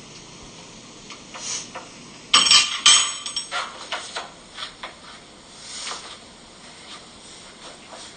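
Barbell and weight plates clanking: two loud metallic knocks with a short ring about two and a half seconds in, then several lighter clinks and ticks.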